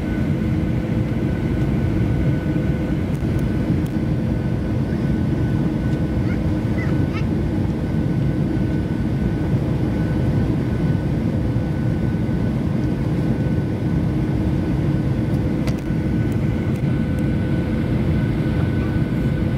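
Cabin noise inside a Boeing 737-900ER on final approach: the steady roar of airflow and its CFM56-7B turbofan engines, with a few thin steady whining tones above it.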